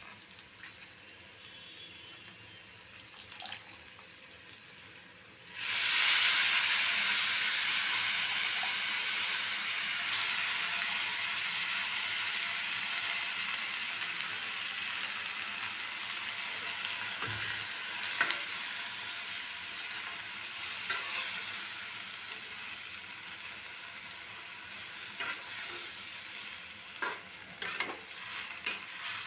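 Fresh fenugreek (methi) leaves going into hot tempering oil in a metal kadhai. After a faint sizzle, a sudden loud sizzle starts about five seconds in and slowly dies down. Near the end a spatula scrapes and taps against the pan as the leaves are stirred.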